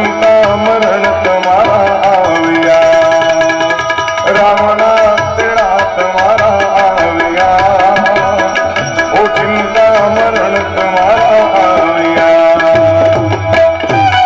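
Instrumental interlude of Gujarati folk devotional music: tabla keeps a steady rhythm of low drum strokes under a melody of held, ornamented notes on harmonium and other melodic instruments.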